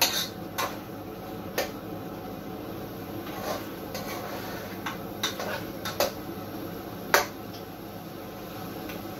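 Metal spoon stirring chunks of deer meat as they fry in a pan, scraping and knocking against the pan in irregular clicks, the loudest about seven seconds in.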